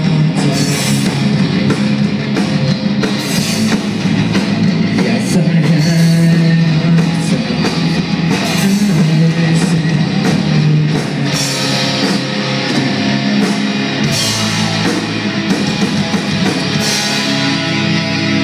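Rock band playing live: electric guitars, bass and a drum kit, loud and dense.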